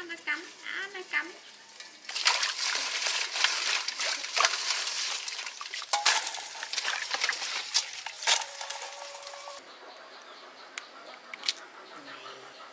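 Hands washing live field crabs in water in a metal pot: loud splashing and sloshing with many sharp clicks of shells and claws against the metal. About three seconds before the end it drops to quieter, scattered clicks as the crab shells are pried off.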